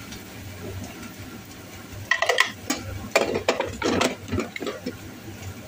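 Metal kitchenware clattering and scraping, a quick run of sharp clinks lasting about three seconds and starting about two seconds in, over a low steady hum.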